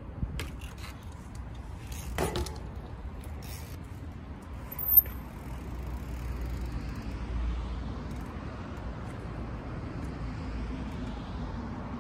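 Mountain bike ridden in trials practice: scattered knocks and clicks, a louder knock about two seconds in and a brief sharp high squeak about five seconds in, over a steady low rumble.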